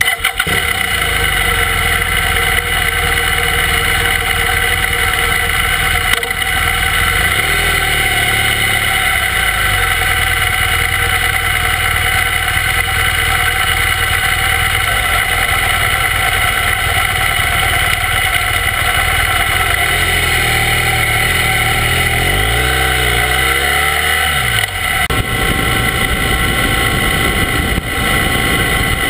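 Motorcycle engine running, close to the camera mounted on the bike: it is steady at first, then rises and falls in pitch about two-thirds of the way through as the bike pulls away and rides off.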